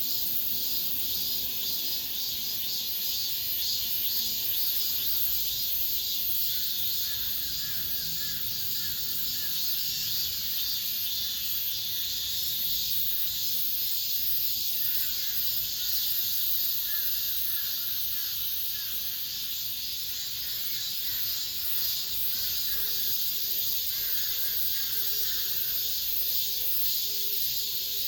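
Cicadas singing in a continuous chorus: a steady, high-pitched hiss that holds without a break.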